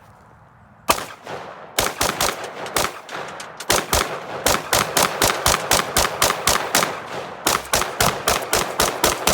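Windham Weaponry AR-15 rifle firing: a single shot about a second in, then a rapid semi-automatic string of shots at roughly three to four a second.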